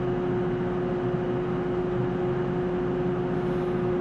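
Steady whirring hum of bench test-equipment cooling fans, with a constant mid-pitched tone running through it.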